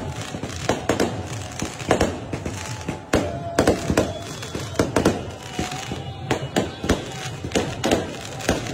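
Fireworks and firecrackers going off in a dense, irregular string of sharp bangs and crackles, several a second.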